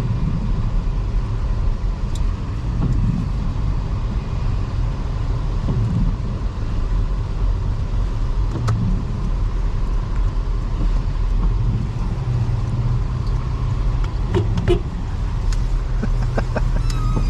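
Toyota Highlander's 3.3 L V6 and tyres heard on the move: a steady low rumble of engine and road noise with a faint steady whine above it. A few sharp clicks come near the end.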